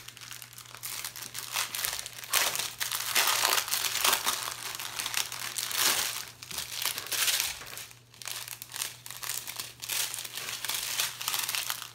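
Thin plastic bags of diamond-painting drills crinkling and rustling as they are handled and pulled out of their packaging, in uneven bursts.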